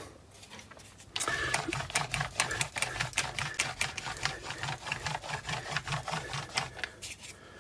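Hand roller (brayer) rolled quickly back and forth over a cast iron surface plate, spreading marking blue for a fit test, with a tacky crackle of sharp clicks in a steady rhythm of about three to four strokes a second. It starts about a second in and stops near the end.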